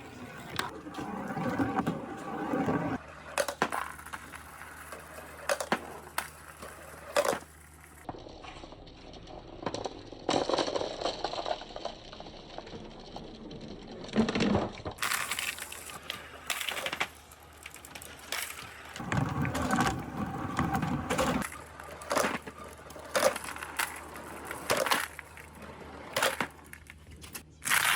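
Many marbles rolling and clacking down wooden rain-gutter chutes with water poured along them, with frequent sharp clicks as the marbles knock together and against the wood. The sound changes abruptly twice.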